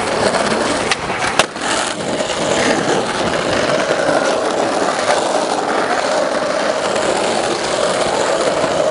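Skateboard wheels rolling steadily over concrete, a continuous gritty rumble, with one sharp click about a second and a half in.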